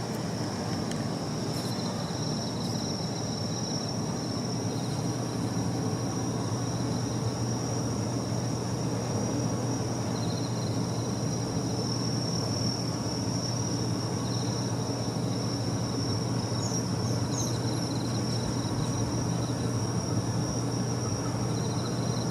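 Steady machine hum with a constant high-pitched whine.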